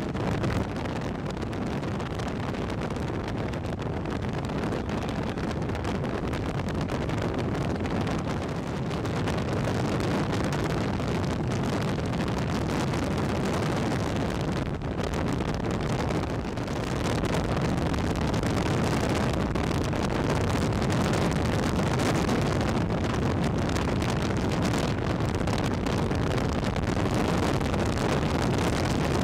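Steady wind rushing and buffeting on the microphone, a little louder from about halfway through.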